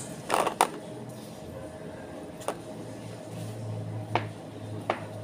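A kitchen knife clicking and knocking against plastic tubs while cutting firm Bulgarian white cheese. There are a few sharp knocks close together near the start, then single knocks every second or two.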